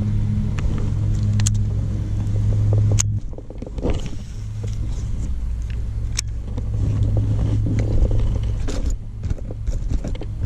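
A steady low motor hum that breaks off for about a second a little after three seconds in and then returns, with a few sharp clicks scattered through it.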